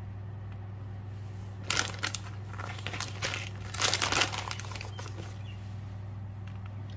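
Baking paper crinkling and rustling under a hand spreading shredded cheddar on a baking tray, in short bursts about two seconds in and again from about three to four and a half seconds in. A steady low hum runs underneath.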